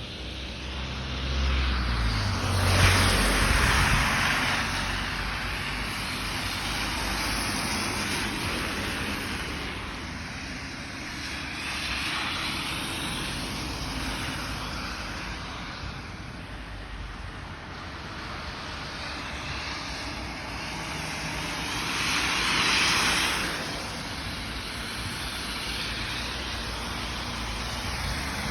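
Steady outdoor rush on a rain-soaked street, with two louder swells of vehicles passing on the wet road, their tyres hissing: one about two seconds in with a low rumble, and a second about twenty-two seconds in.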